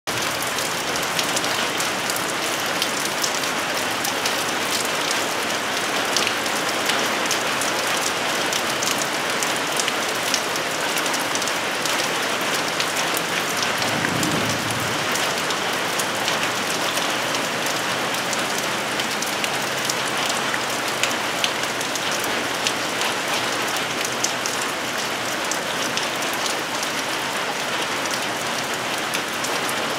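Steady rain falling around and onto a metal carport roof, heard from underneath, with a constant hiss and many small, sharp drop ticks.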